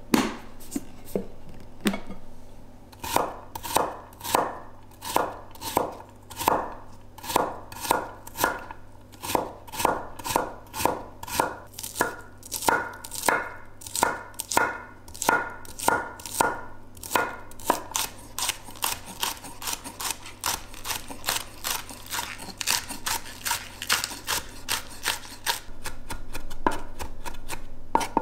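Chef's knife chopping on a wooden cutting board: evenly spaced strokes, about one and a half a second, as asparagus stalks are sliced, then quicker, closer chopping in the second half as garlic is minced.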